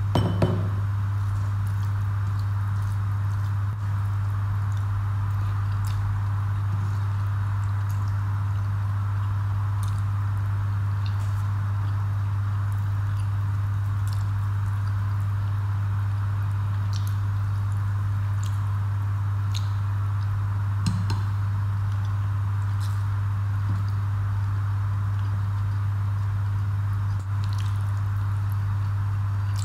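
Eating by hand: soft scattered clicks and squishes of rice and fish curry being mixed with the fingers and chewed, over a steady low hum. A ceramic bowl knocks down on the table right at the start.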